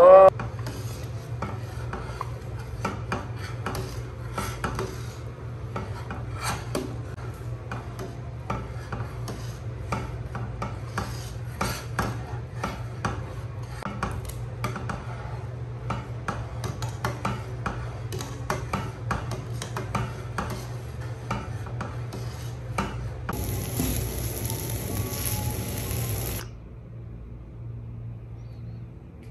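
Handling noises: many light scrapes, rubs and clicks at an uneven pace over a steady low hum. Near the end a steady hiss lasts about three seconds and stops abruptly.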